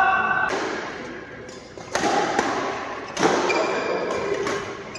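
Impacts from badminton play echoing in a large indoor hall: two sharp hits about two and three seconds in, each ringing on for about a second before fading.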